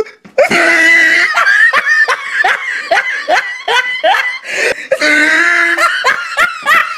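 People laughing hard in a string of short, rising bursts, with a longer drawn-out laugh near the start and again about five seconds in.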